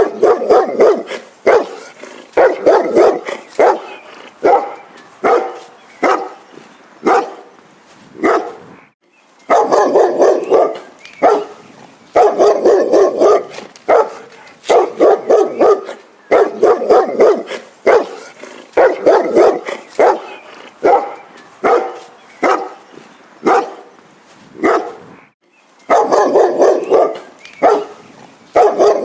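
A dog barking repeatedly, in fast runs of several barks a second broken by short pauses.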